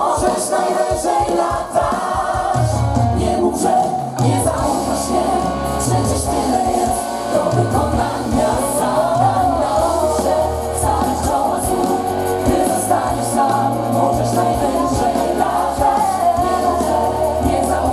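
Live pop music sung by a group of singers together, with band accompaniment; a deep bass comes in about two and a half seconds in.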